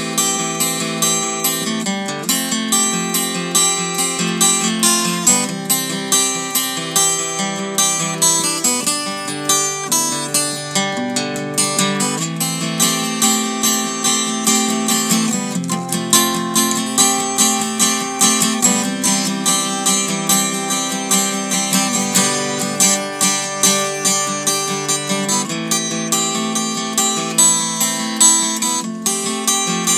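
Solo acoustic guitar instrumental played on a Taylor W14: a continuous run of plucked notes and strummed chords.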